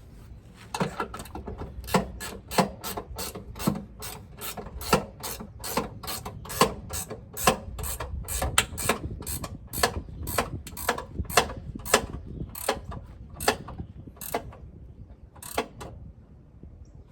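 Ratcheting wrench clicking, about three clicks a second, as it turns a 13 mm bolt on a step rail bracket. The clicking thins out with short pauses near the end, then stops.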